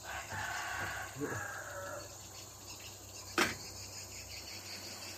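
Insects chirring in the background, with a single short, sharp knock about three and a half seconds in.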